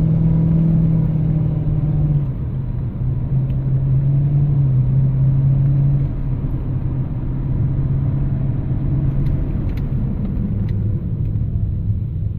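2006 Dodge Charger Daytona driving, a steady low engine and road hum whose pitch steps down twice, about two seconds in and again near the end, as the car slows.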